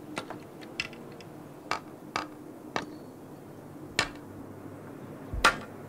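Hammer blows on wooden boards, knocking nails in: about seven irregular sharp knocks, the loudest a little after five seconds in.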